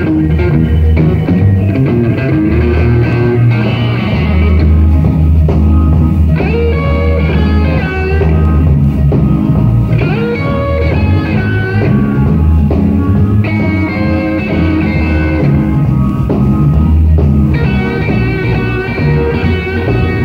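Blues-rock band playing live: electric guitar phrases over bass and drums. The lead lines come in short runs every few seconds over a steady, loud backing.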